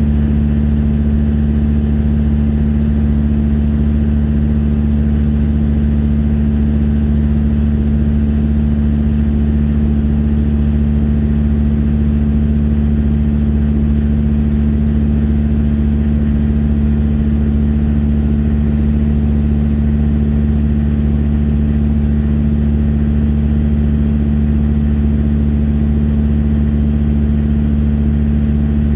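Boat's engine running steadily at an unchanging pitch, a deep even hum.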